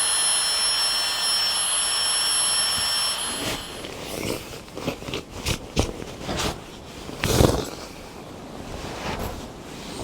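A small battery-powered Flextail Gear air pump running with a steady high whine, cutting off about three and a half seconds in. Then a few scattered knocks and rustles of handling.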